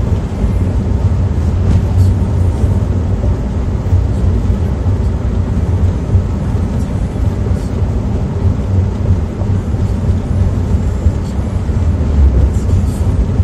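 Car driving, heard inside the cabin: a steady low rumble of engine and road noise.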